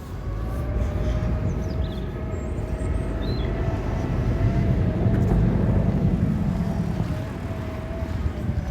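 A vehicle running: a steady low rumble with a steady drone above it, swelling a little past the middle.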